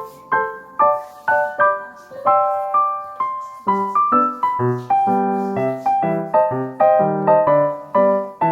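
Background piano music: a light melody of plucky, quickly decaying notes, with lower bass notes joining about four seconds in.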